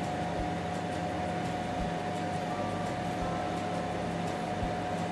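Steady mechanical hum with one steady tone running through it, like a fan or motor running, with a few faint low thumps.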